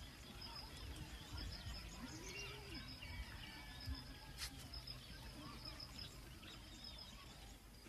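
Faint outdoor ambience with scattered small bird chirps, and a single sharp click about four and a half seconds in.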